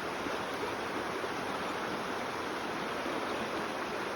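Steady rush of flowing creek water, an even noise with no change in level.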